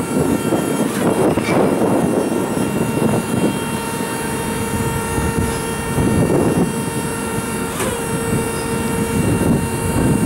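Hyster 3-tonne electric forklift's hydraulic pump motor whining steadily as the mast tilts forward and back, over a rough rumble. A click and a slight change in the whine come about eight seconds in.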